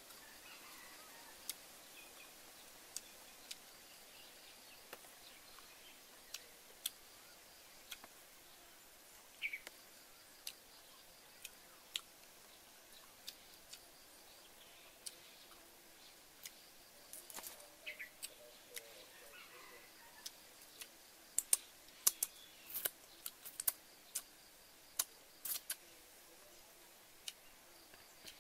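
Quiet, scattered sharp clicks and smacks of a person eating cooked worms by hand and chewing, over a faint forest background. The clicks come closer together near the end.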